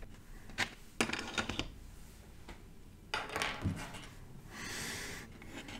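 A few light clicks and clinks of small hard objects being handled, then a short clatter about three seconds in and a soft hiss near the end.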